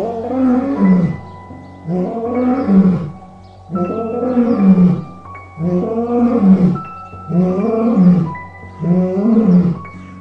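Lion growling roars, six in a row, each about a second long with a rising-then-falling pitch and spaced evenly about every second and three quarters. Background music with a thin held melody plays under them.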